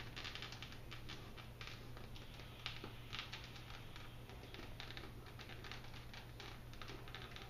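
Irregular small clicks and crinkles of paper and plastic packaging being handled and pulled off a new mountain bike frame, over a low steady hum.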